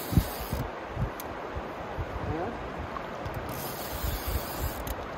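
River current rushing steadily past, with irregular low gusts of wind buffeting the microphone.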